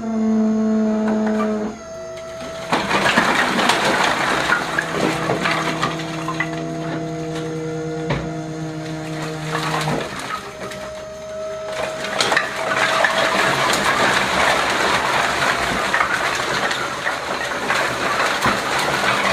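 Wood-processing machinery running: a steady motor tone under noisy crunching and crackling of wood, the tone changing pitch about two seconds in and again about ten seconds in.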